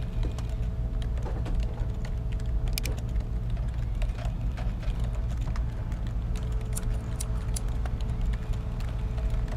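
Office ambience: a steady low rumble and hum of building machinery, with scattered keyboard typing clicks throughout.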